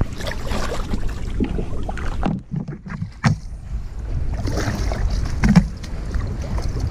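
Water splashing and sloshing around a kayak under a steady rumble of wind on the microphone, with a sharp knock a little over three seconds in and a thump about two seconds later.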